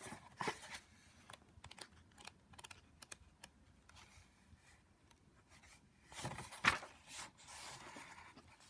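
Paper pages of a book being leafed through and handled: faint rustles and small clicks, with a louder rustle of paper about six and a half seconds in.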